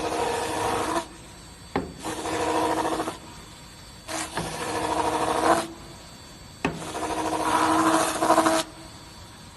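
Oscillating vertical spindle sander grinding a workpiece against its drum in four separate passes, each starting with a light knock and growing louder as the piece is pressed in. Between the passes the machine keeps running quietly.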